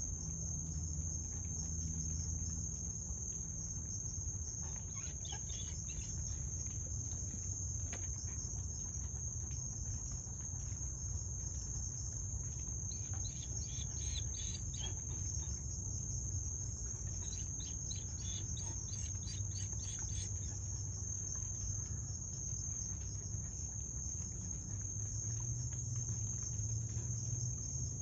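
Night chorus of crickets trilling steadily at a high pitch, with fainter rapid chirping from other insects through the middle, over a low background rumble.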